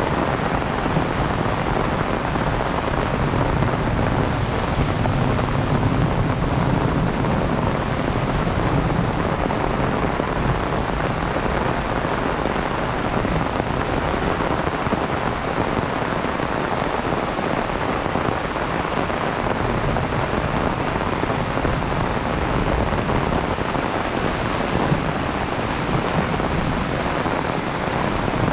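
Heavy rain falling steadily as a dense, even hiss. A low rumble swells and fades over the first third.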